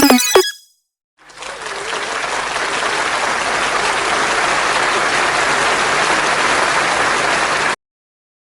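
Large crowd cheering and applauding, a dense roar that swells in over about a second, holds steady, then cuts off suddenly. A burst of music stops just before it begins.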